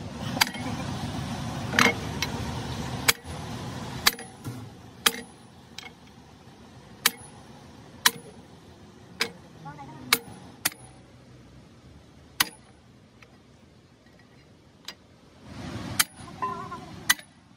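Hammer blows on a hammer head held against a large double-row steel roller bearing, driving it along a jaw crusher shaft: sharp metallic clanks with a short ring, about one a second, with a pause of a few seconds before a last blow near the end.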